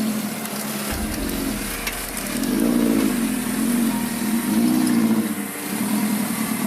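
Off-road 4x4 engine revving up and easing off about four times as the vehicle works through a difficult section, with a low rumble underneath from about a second in.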